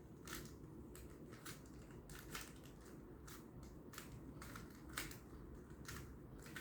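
Rubik's cube being turned by hand: a string of faint, irregular plastic clicks and clacks as its layers are rotated.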